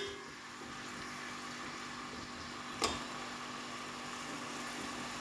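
Chopped onions frying in oil in a steel pot, a steady sizzle at the early stage before they brown. A single sharp clink of the steel spoon against the pot a little past halfway.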